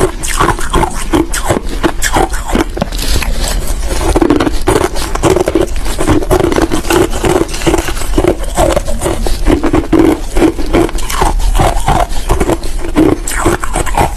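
Big pieces of crushed ice being chewed close to the microphone: dense, sharp crunching in a steady chewing rhythm of about two to three bites a second.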